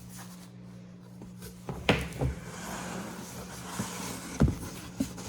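Cardboard boxes being handled and shifted, with several knocks and thumps: the loudest about two seconds in and again past four seconds, with rustling between them. A low steady hum runs underneath.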